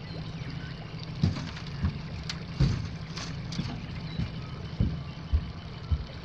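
Footsteps and gear knocking on the hull of an aluminium runabout as a man steps aboard: about eight irregular thumps and knocks over a steady low hum.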